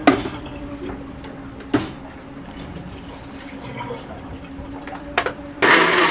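A few sharp knocks and clatters over a steady low hum, then, about five and a half seconds in, a countertop blender switches on and runs loud and steady, making a smoothie.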